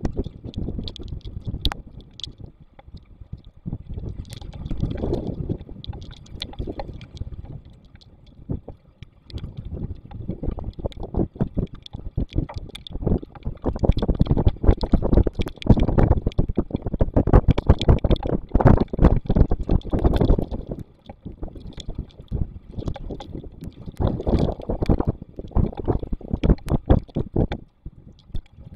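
Storm wind gusting hard against an outdoor nest-box camera's microphone, with rain crackling and spattering on the housing; the gusts build and are strongest midway, then ease and swell again near the end.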